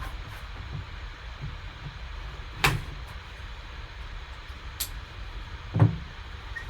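Handling noise from a box of trading cards being worked at a table: a few dull knocks, the loudest near the end, over a low steady hum.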